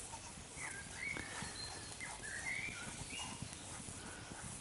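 Thick stew bubbling and plopping in a titanium mug over a small wood fire as it is stirred with a stick, with light crackling. Several short, high chirps that rise and fall are heard through the middle.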